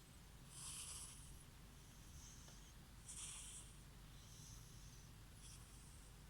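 Silver tabby cat snoring softly in its sleep: rasping, hissing breaths at a slow, even pace, the strongest about half a second in and about three seconds in, with fainter breaths between.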